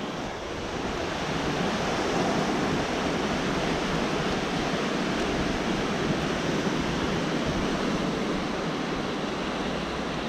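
Sea surf washing onto a beach: a steady, unbroken rush of noise that swells slightly about two seconds in, with wind on the microphone.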